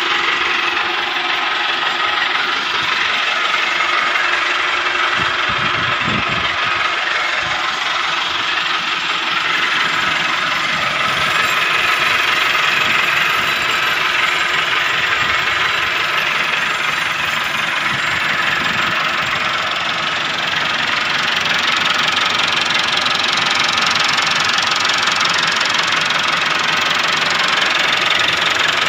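Massey Ferguson 385 tractor's four-cylinder diesel engine idling steadily.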